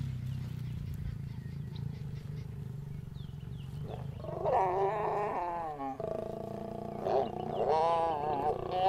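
A mating pair of lions growling. A low rumbling growl runs for the first few seconds. From about four seconds in come drawn-out growls that rise and fall in pitch, and they swell again near the end as the mating goes on.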